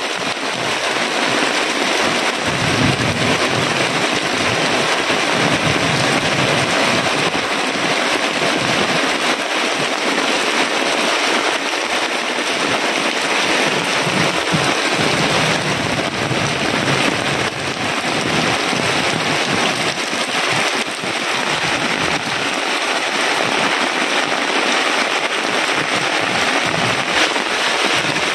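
Heavy rain falling steadily, a loud, dense hiss of drops hitting the plastic tarpaulin shelter and splashing onto waterlogged ground.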